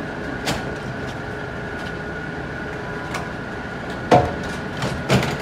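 Metal clanks and knocks from an ambulance stretcher as it is pulled out of the ambulance and set down, over a steady hum. The loudest knock comes about four seconds in, with another about a second later.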